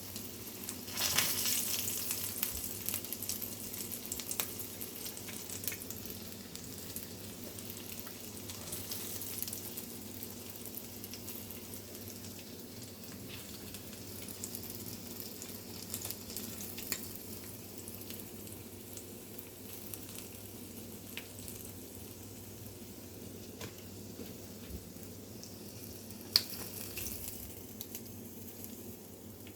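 Hot sunflower oil sizzling and crackling in a frying pan with the burner off, flaring up about a second in and then settling to a lighter crackle. One sharp click near the end.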